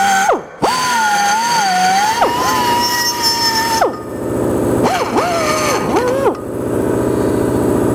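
Handheld die grinder with a coarse burr cutting into an aluminum carburetor hat: a high whine that sags in pitch as the burr bites and recovers as it eases off. It cuts out briefly about half a second in and stops near four seconds. After that a steady low machine drone takes over, with the grinder whining only in short bursts.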